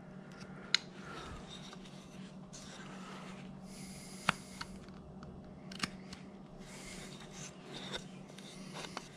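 Small hand carving tool cutting into a wooden figure: faint slicing and scraping of the blade in the wood, with a few sharp clicks.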